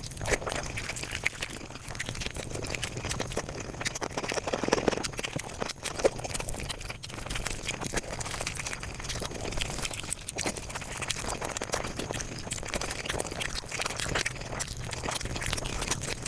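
A person's eating sounds, chewing and mouth smacks, played back at five times normal speed, so they run together into a dense, fast chatter of clicks.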